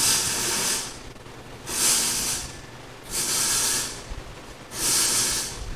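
Four short bursts of hissing, each just under a second, coming about every second and a half.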